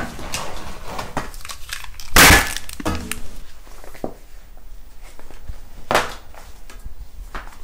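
Knocks of objects set down on a glass-topped table, the loudest about two seconds in and another near six seconds, with quieter paper rustling and small taps as a notebook is opened and handled.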